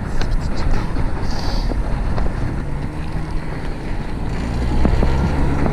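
Wind rushing over the action camera's microphone and road rumble while riding a fixed-gear bicycle through town streets, with a low steady drone joining a little past two seconds in.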